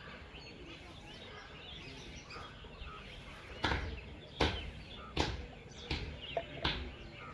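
A run of five sharp knocks, about one every 0.7 seconds, starting a little past halfway, over a low background with faint bird chirps.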